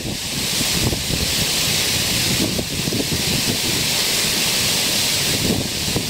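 Creek water pouring over a low weir and churning into the pool below, a steady loud rush. Wind buffets the microphone in uneven low gusts over it.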